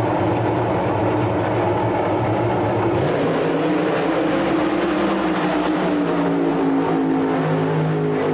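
Loud engine noise running steadily. It turns harsher and brighter about three seconds in, and a pitch slowly falls through the second half.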